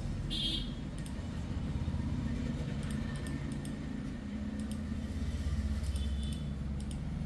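Steady low rumble of background noise, with scattered faint clicks.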